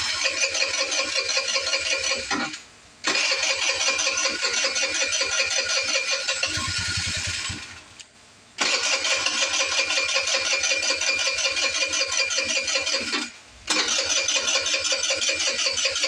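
GY6 50cc scooter engine being cranked by its starter in four attempts of a few seconds each, with short pauses between, without catching and running. The owner puts the slow start down to bad gas in a scooter that hasn't been started in a while.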